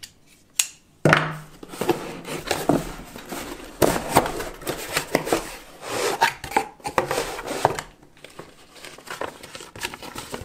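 Cardboard box being opened and handled, with paper rustling and crinkling as a folded instruction sheet is lifted out and unfolded. A single sharp click comes just after the start.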